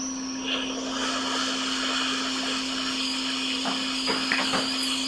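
Hot air rework station blowing steadily: an even hiss of air over a low steady hum, with a few faint ticks in the second half.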